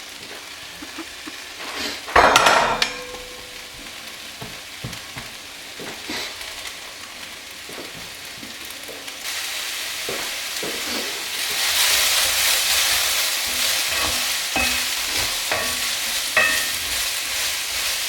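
Chopped onions sizzling as they fry in a cast iron pan with cooking spray, with small scraping clicks of stirring. A loud clank comes about two seconds in, and the sizzle grows louder in the second half.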